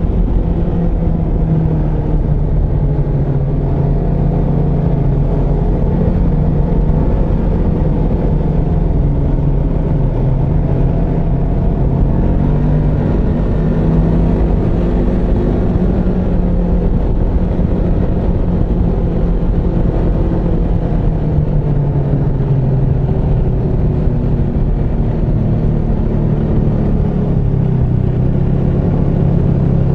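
Snowmobile engine running steadily at trail speed, heard from the rider's seat, its pitch rising and falling gently with the throttle.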